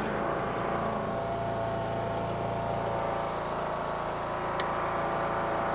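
Riding lawn mower engine running steadily while it mows and collects leaves, heard close up from the driver's seat.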